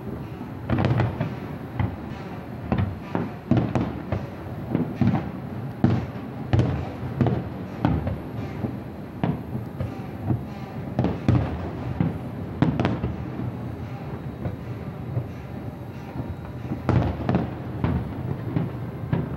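Aerial fireworks shells bursting in a rapid, irregular series of booms, each trailing off in echoes, with a lull of a few seconds about two-thirds of the way through.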